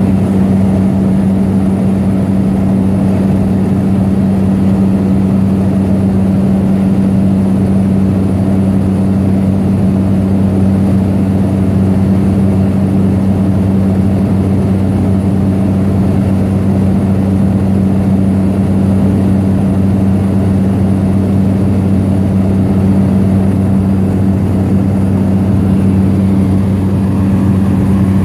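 Steady drone of a seaplane's engine and propeller in cruising flight, heard from inside the cabin: a loud, even low hum that does not change.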